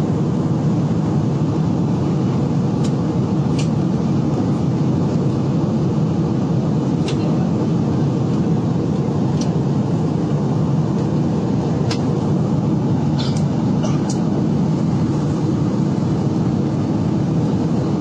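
Airliner cabin noise in cruise: a steady, even roar of jet engines and rushing air, deep and unchanging. A few faint clicks come at scattered moments.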